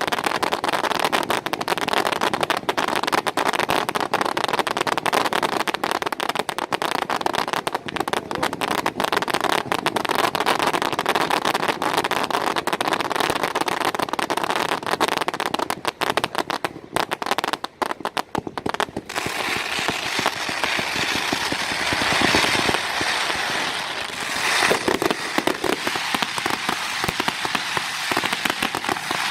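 Fireworks going off in rapid succession: a dense string of sharp cracks and bangs, turning about two-thirds of the way through into a steadier hissing crackle.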